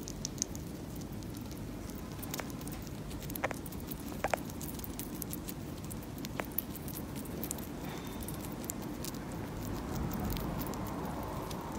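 Sugar glider chewing a large cockroach: sparse, crisp crunching clicks at irregular intervals over a steady low background noise.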